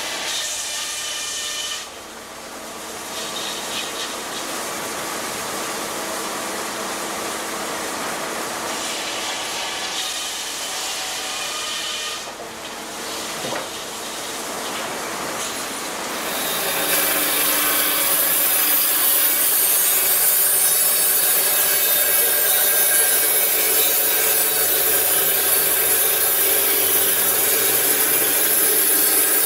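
Sawmill machinery sawing timber. For the first half, a large circular saw cuts boards on a conveyor. From about 16 seconds in, a portable band sawmill cuts through a log, louder, with a steady high hiss.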